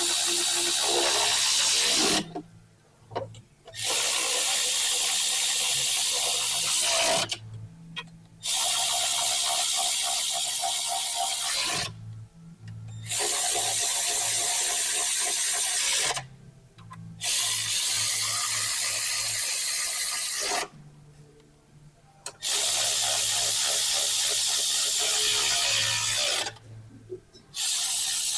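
Milwaukee cordless electric ratchet spinning engine cover bolts down. It runs in about seven spells of two to four seconds each, with short pauses between.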